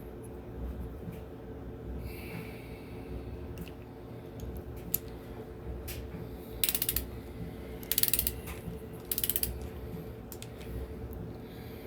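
Socket ratchet being worked in three short runs of quick clicks, running the camshaft retainer plate bolts down before they are torqued.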